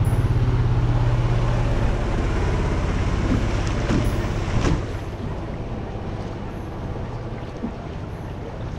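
A passing motorboat's engine running with a steady low throb, which drops away about five seconds in. Softer water noise from the kayak on the river remains.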